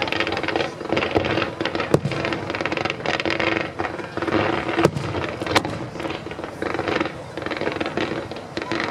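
A fireworks display going off: a dense, continuous crackle and hiss, with a few sharp bangs of shells bursting, the loudest about two and five seconds in.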